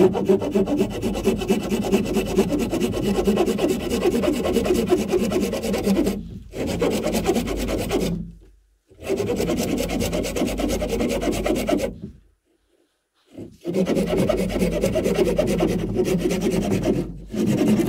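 Small hand saw cutting through a hardwood branch, with fast back-and-forth strokes in several runs broken by short pauses.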